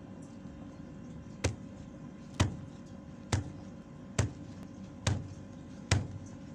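Six sharp thumps, evenly spaced about one a second, over a steady low hum.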